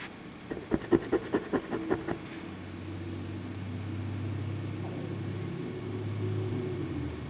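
A coin scratching the latex off a lottery scratch ticket in about ten quick strokes. Then a steady low motor hum starts, runs for several seconds and stops suddenly near the end.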